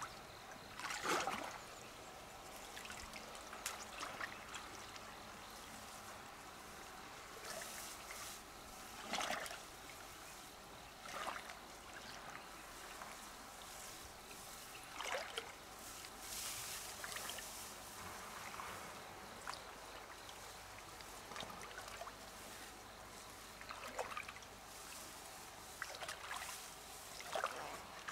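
River water trickling, with small splashes and drips every few seconds.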